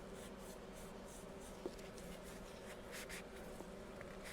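Faint, irregular rubbing strokes of stain being wiped over a small tiger maple piece, a few strokes a second, over a steady low hum.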